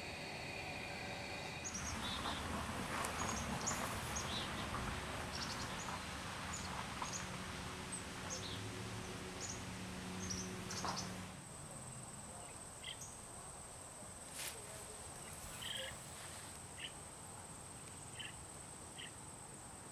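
Outdoor natural ambience: short high bird chirps scattered over a steady background hiss. About eleven seconds in the sound changes to a quieter bed with a steady high insect tone and a few more chirps.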